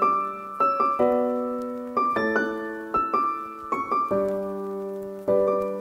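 Piano music: chords and single notes struck about every half second to a second, each ringing and fading before the next.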